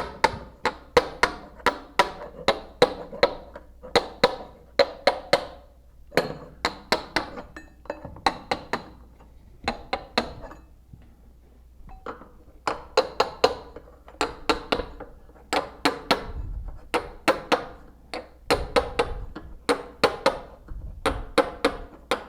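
A mallet taps a steel packing chisel, driving oakum down into a cast iron pipe hub joint. The strikes are sharp and ringing, about two to three a second, in runs broken by short pauses.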